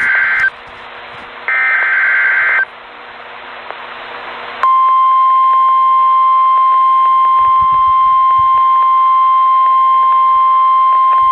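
NOAA Weather Radio emergency alert over radio hiss: two short bursts of warbling SAME header data tones, then, about four and a half seconds in, the loud steady 1050 Hz warning alarm tone. The tone marks a warning-level alert, here a severe thunderstorm warning.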